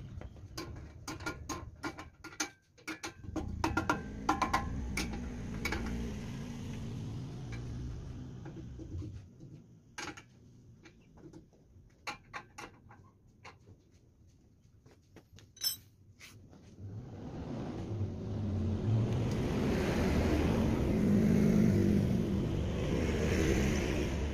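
Clinks and taps of metal hand tools and parts being handled while working on a go-kart frame and engine, most frequent in the first few seconds. In the second half a louder, even rumble of a motor vehicle builds up and holds.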